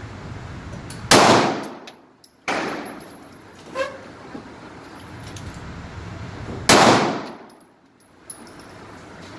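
Three pistol shots: the first about a second in, a fainter one about a second and a half later, and a third after a gap of about four seconds, each trailing off in the echo of an indoor range. A short metallic ring sounds between the second and third shots.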